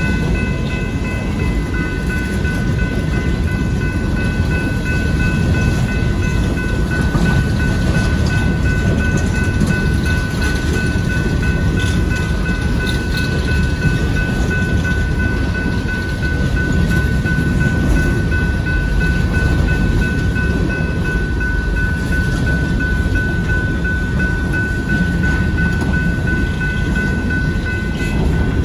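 Union Pacific coal train's freight cars rolling past: a steady rumble of steel wheels on rail, with a steady high ringing tone above it.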